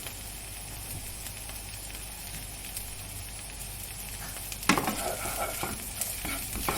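Semolina vadas frying in hot oil with a steady sizzle; from near the middle on, a spatula or slotted spoon stirs and turns them in the pan with clinks and scrapes.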